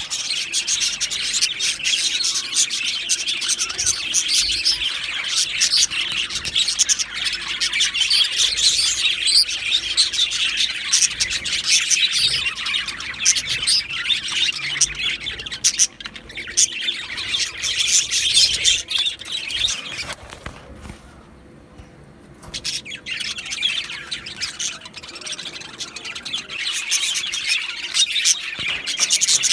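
Male budgerigars chirping and warbling in a fast, busy chatter, with a pause of about two seconds partway through before the chatter resumes.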